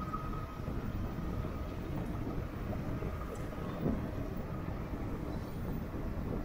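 Steady low rumble of wind on the microphone and tyre noise while riding an electric bike.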